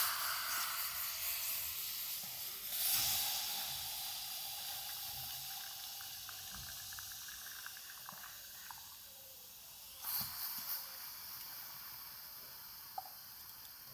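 Milk tea hitting a red-hot clay pot, hissing and boiling up at once as it flash-boils on the glowing-hot clay. The hiss starts suddenly, fades slowly, and surges again about three seconds in and about ten seconds in, while the tea froths over the rim.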